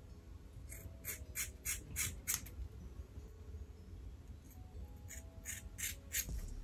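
Small scissors snipping through a section of curly hair. There is a run of about six quick snips, roughly three a second, then a pause and another run of about five near the end.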